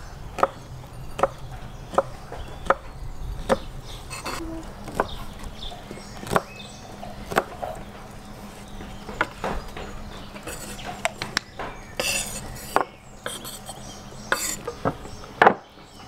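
Chef's knife slicing smoked sausage on a wooden cutting board, each cut ending in a sharp knock of the blade on the board. The knocks come evenly, a little more than once a second at first, then irregular.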